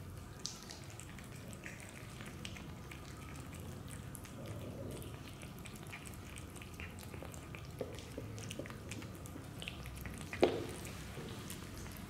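Cat eating wet food from a bowl close by: soft, wet smacking and chewing clicks that keep on irregularly, with one sharper, louder click about ten seconds in.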